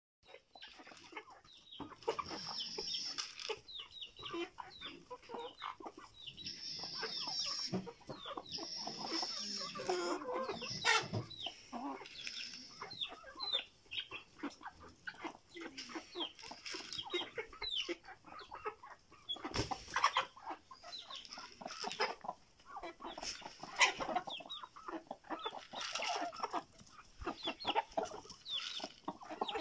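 A flock of domestic hens clucking as they feed, with many short calls overlapping throughout.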